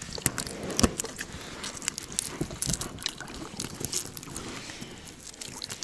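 Irregular crackling clicks and small knocks as hands work a golden crucian carp free from a tangled fishing gill net, with one sharper knock just under a second in.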